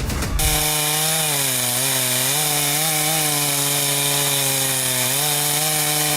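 Petrol chainsaw running at high revs, a steady, loud engine note whose pitch dips slightly now and then. It comes in abruptly about half a second in.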